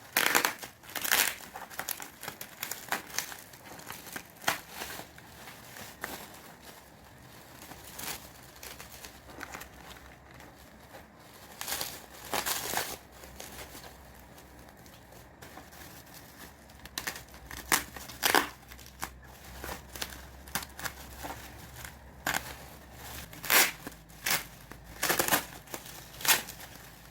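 Packaging being handled and opened: irregular crinkling with bursts of tearing, loudest in clusters in the middle and near the end.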